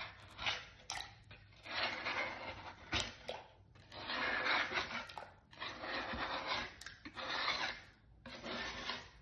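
A hand-held pad scrubbing the underside of an unfired clay piece in a series of rough rubbing strokes, each about a second long with short pauses between.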